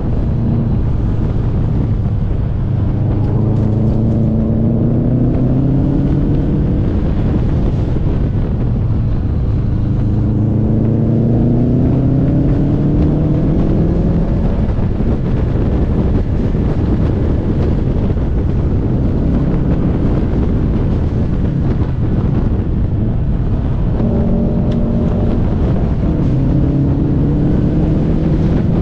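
Car engine accelerating hard three times, the revs climbing and then dropping back between pulls, over steady wind and road noise.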